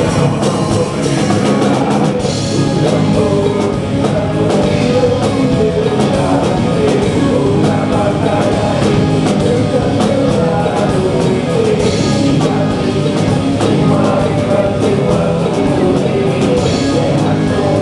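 Drum kit played along to a loud rock track with guitar, the drums and the recording blending into one steady wall of music.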